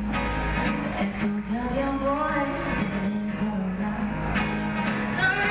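A woman singing to her own acoustic guitar, a live folk-style song over a microphone.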